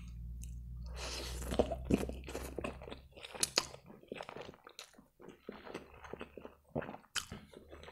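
Spaghetti strands being slurped into the mouth, a long sucking slurp about a second in, then chewed with many short wet mouth clicks and smacks, close to a clip-on microphone.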